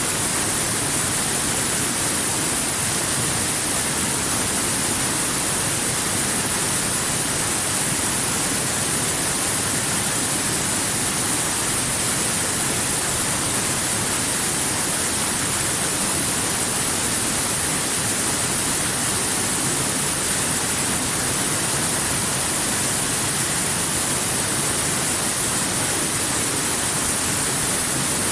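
Waterfall: water falling and rushing in a steady, unbroken roar with a strong hiss.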